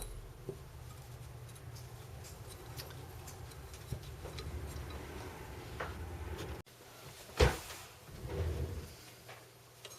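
Hands and a screwdriver working on a record changer's spindle assembly, backing out its long mounting screws: low handling rumble, then one sharp click about seven and a half seconds in and a softer knock a second later.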